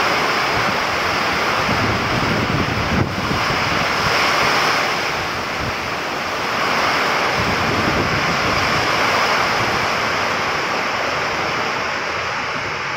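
Heavy rain pouring down with gusting wind through trees, the wind buffeting the microphone: a dense, steady rush that eases a little midway and swells again.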